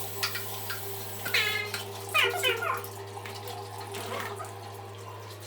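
Black Labrador puppy whining: a few short, high whimpers that fall in pitch, about a second in and again soon after.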